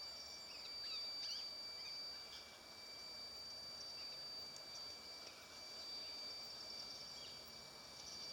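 Faint outdoor ambience: a steady high insect drone with scattered short bird chirps.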